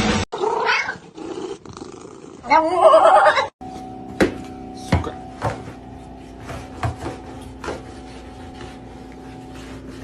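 A cat meowing twice: a short call, then a louder, drawn-out one. Then a steady hum with a scattering of sharp clicks.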